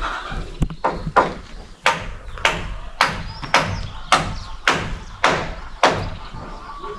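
Hammer blows on wooden roofing timbers: about ten sharp, evenly spaced strikes, a little under two a second, stopping about a second before the end.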